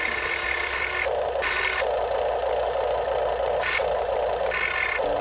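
Electric linear actuators of a Huina 1580 RC excavator whirring as the stick and bucket move. The motor noise starts, stops and changes pitch several times as different actuators run.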